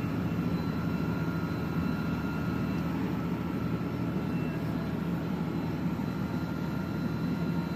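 Fire engine's diesel engine running with a steady low drone that holds even throughout.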